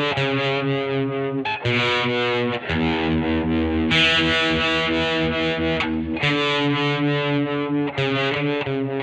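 Electric guitar, a Fender Jazzmaster converted to a humbucker/single-coil 'Jazzblaster', played through a Peavey Vypyr VIP 2 amp with heavy distortion. Strummed chords, some choppy and some left ringing for a few seconds, change every second or two.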